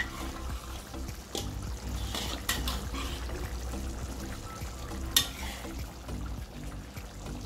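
Metal spatula scraping and knocking against a wok while pieces of fish are turned in a simmering curry sauce, with a few sharp clanks, the loudest about two and a half and five seconds in. Soft background music runs underneath.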